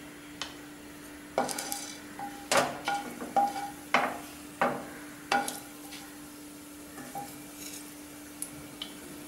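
Whole spices tipped into a little oil in a nonstick pan and stirred with a wooden spatula: a string of sharp knocks and clinks against the pan, most of them in the first seven seconds, over a faint steady hum.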